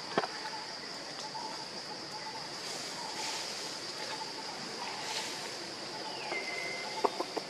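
Outdoor tree-canopy ambience: a steady high-pitched insect drone, with short repeated chirping notes and one falling whistle-like call about six seconds in. Sharp clicks or knocks sound just after the start and again about seven seconds in.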